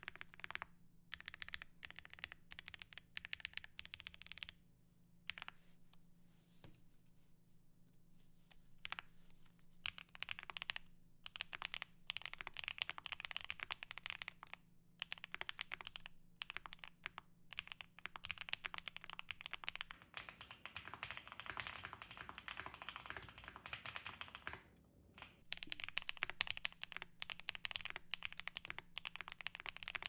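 Typing on a Cykle7 custom mechanical keyboard with filmed, lubed Akko V3 Pro Creamy Black switches, a PC plate, full foam and PBT keycaps. Fast, dense keystrokes, thinning to scattered presses for a few seconds early on, with a few brief pauses.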